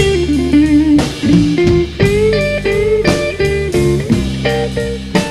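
Blues lead solo on a semi-hollow-body electric guitar, a line of single notes with bent notes, over the band's steady backing.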